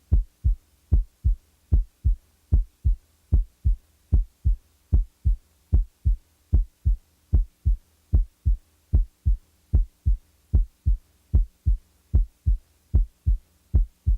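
Heart sounds, the first and second heart sounds (S1 and S2) beating in regular pairs, with no mid-systolic click and no late systolic murmur between them: a normal-sounding heartbeat once the signs of mitral valve prolapse are taken away.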